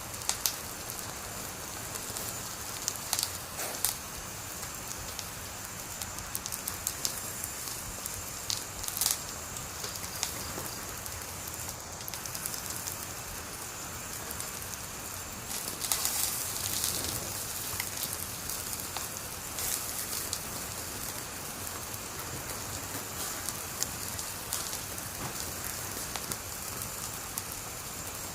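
Wood fire burning: a steady hiss with sharp crackles and pops every few seconds, and a denser spell of crackling about halfway through.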